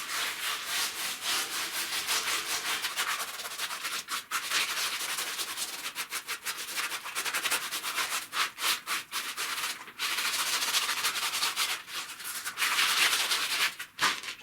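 Wet scrubbing of a firebrick firebox, rubbing over the bricks and smoothing the mortar joints in quick back-and-forth strokes, with a few short pauses.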